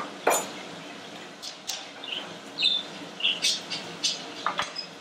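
Sliced Italian peppers tipped off a cutting board into a skillet of browning chicken and onion, with a sharp clatter about a third of a second in. A run of short high chirps and clicks follows over a steady low hiss.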